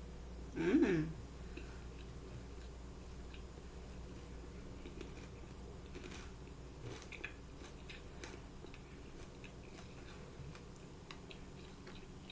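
A person chewing crunchy boneless Korean fried chicken, with faint scattered crunches. A hummed "mmm" comes about a second in.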